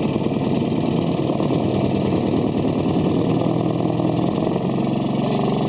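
A boat motor running steadily.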